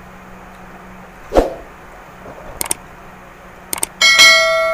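Subscribe-button overlay sound effects: a single thump, then two quick mouse clicks, then a bell chime that rings out and fades near the end.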